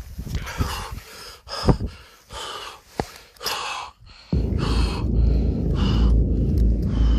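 A man's quick, heavy breathing close to the microphone, about two breaths a second, as he hurries away. Wind rumbles on the microphone, dropping out for the first few seconds and returning, with a couple of sharp clicks in the quieter stretch.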